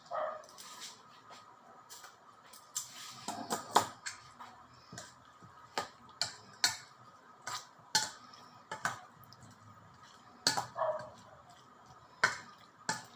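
Scattered clicks and knocks of utensils and dishes handled in a kitchen, irregular and spread across the whole stretch, the loudest about four seconds in. Two short falling cries come in near the start and again about ten seconds in.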